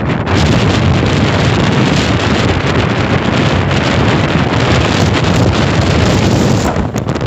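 Strong sea wind buffeting the microphone: a loud, steady rush of wind noise that briefly dips near the end.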